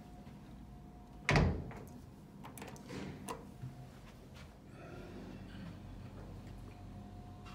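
Elevator arriving and its door mechanism working: one loud thunk about a second in, then a few lighter clicks and knocks, over a faint steady hum.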